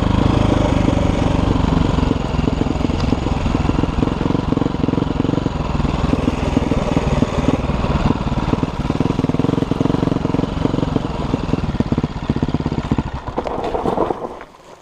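Dirt bike engine running as the bike rides along a rough dirt trail, steady and loud, then dying away sharply near the end.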